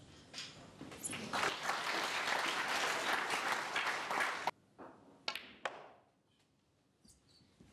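Audience applauding for about three and a half seconds, cut off abruptly. A few sharp clicks follow: a snooker cue striking the cue ball and the ball hitting another.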